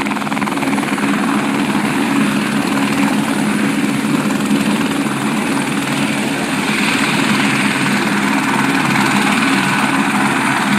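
Aérospatiale AS 350 Écureuil helicopter's turbine and main rotor running steadily, close to the ground during landing: a loud, even low hum over a turbine hiss.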